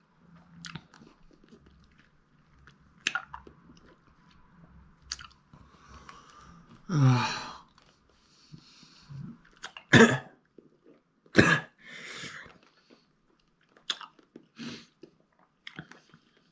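A man groans, coughs and breathes hard through his mouth from the burning heat of a Carolina Reaper chilli. There are small wet mouth clicks and smacks throughout, one loud groan falling in pitch about seven seconds in, and two short, loud coughs around ten and eleven seconds in, followed by a breathy exhale.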